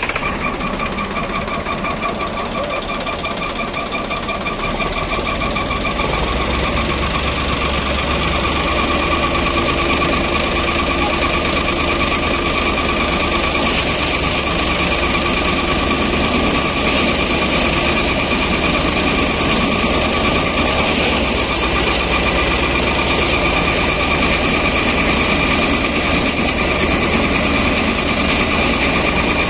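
ShaktiFarm paddy thresher running at full working speed, driven by a Sonalika DI 42 RX tractor's diesel engine: a loud, steady mechanical din with a constant high whine. It builds slightly over the first several seconds, then holds.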